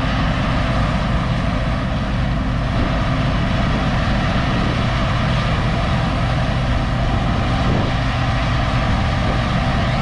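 A vehicle engine running steadily, an even drone that holds the same speed throughout.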